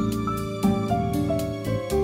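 Background music: a gentle melody of held notes that change every fraction of a second, over a light, regular tapping beat.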